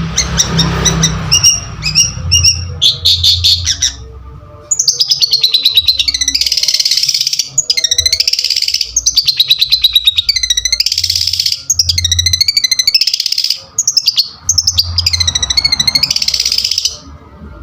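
Long-tailed shrike (cendet) singing: a few sharp separate notes, then, about five seconds in, long runs of rapid chattering notes in phrases of a second or so with short breaks between, stopping just before the end.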